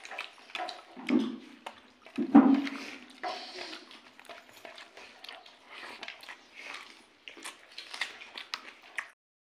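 Wet squelching and clicking of rice and fish curry being mixed by hand, and chewing, with two louder bumps about one and two seconds in. The sound cuts off suddenly near the end.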